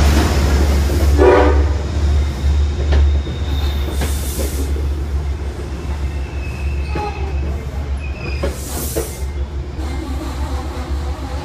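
Metro-North Hudson Line passenger train rolling past along the platform: a low rumble that slowly fades, with clicks from the wheels. A short horn sound comes about a second in, and a few brief thin squeals from the wheels come later.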